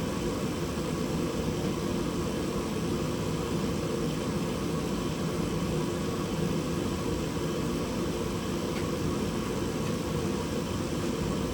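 Steady rushing noise of a blower running, with a low hum underneath and no change in level.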